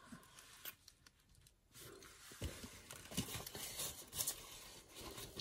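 Faint rustling and light taps of craft items and a plastic stamp packet being handled on a tabletop.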